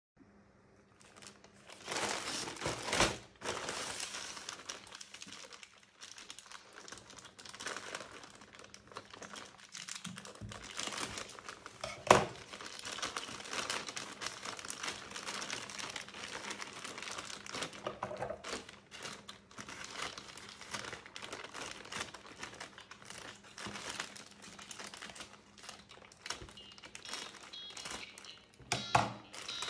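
Plastic poly mailer bag crinkling and rustling as hands handle it and tear it open, with a sharp snap about twelve seconds in. A louder burst near the end as scissors cut into the bag.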